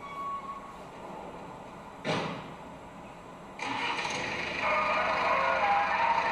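Experimental concert music for viola, tárogató and four-channel tape: a short noisy burst about two seconds in, then a sudden dense wash of noise, with held tones coming in over it a second later.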